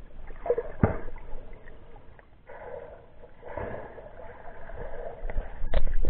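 Water sloshing and gurgling around a submerged camera, with sharp knocks about a second in and again near the end.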